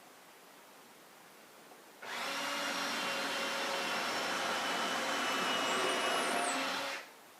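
An electric power tool's motor runs steadily for about five seconds, starting about two seconds in and cutting off abruptly near the end.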